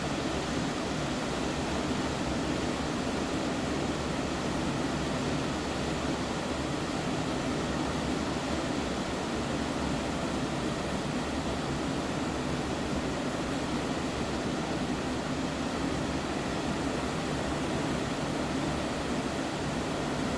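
Sea water rushing past a moving cruise ship, a steady even rush with no breaks or single waves standing out.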